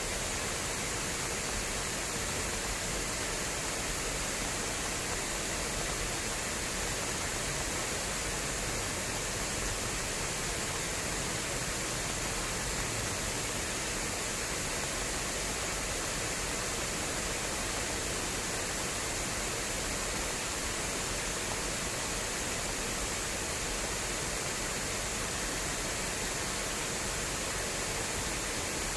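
Fast-flowing water rushing steadily through an irrigation channel.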